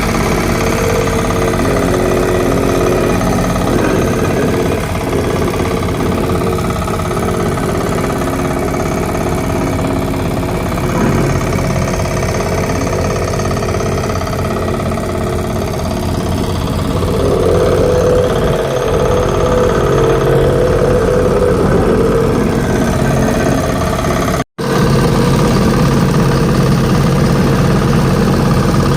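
Engine of a construction machine running steadily. There is a brief break near the end, after which the running is louder and lower.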